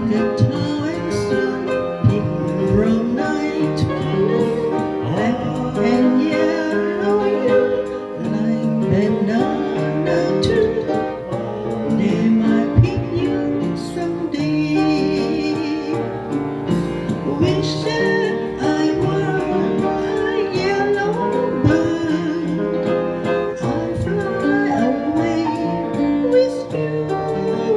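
A woman singing a cover song with instrumental accompaniment, her melody holding long notes with vibrato.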